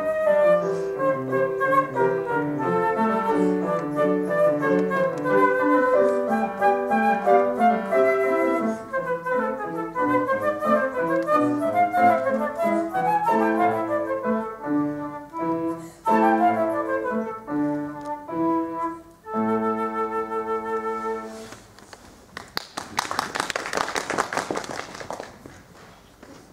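Concert flute and grand piano playing the closing bars of a classical piece, ending on a held final chord about twenty seconds in. A short burst of applause follows near the end.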